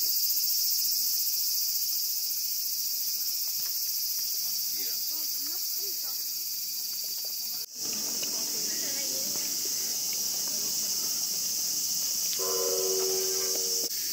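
A steady, high-pitched chorus of insects, with faint voices of people underneath. The sound cuts out for an instant about eight seconds in, and a short held tone sounds near the end.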